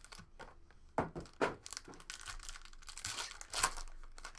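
A foil trading-card pack being torn open, its wrapper crinkling. There are a couple of sharp snaps of the foil about a second in, then a louder stretch of tearing and crinkling near the end.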